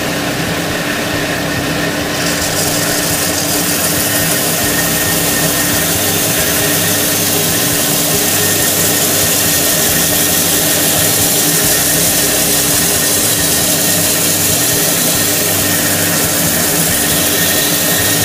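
Belt and disc sander running with a steady motor hum, and a loud hiss of wood being sanded on the belt as a ukulele neck block is pressed against it, the hiss setting in about two seconds in.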